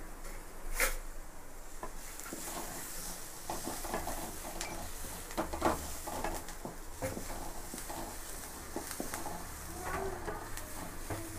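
Chopped onions, ginger and garlic sizzling in oil in a metal pot while a wooden spatula stirs them, scraping and knocking against the pot. One sharp knock about a second in is the loudest sound.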